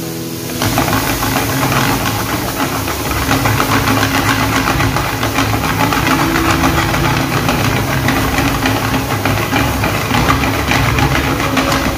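Chopped tomatoes and spice masala frying hard in a pan over a high flame that flares up around it: a loud, steady sizzle and rush of fire with crackling, and a spoon stirring through the pan. It starts suddenly about half a second in.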